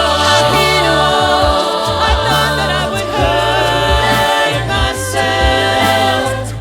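A cappella vocal ensemble singing layered close harmonies over a sung bass line, with regular vocal-percussion hits keeping the beat.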